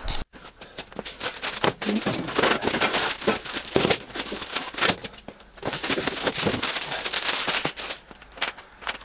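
Clear plastic wrapping and bagged parts crinkling and rustling as bandsaw components are handled during unpacking, with many small clicks and knocks. It dies down about a second before the end.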